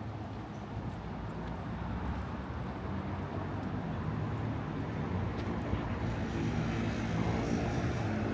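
A low, steady engine rumble that slowly grows louder, from passing motor traffic or an aircraft.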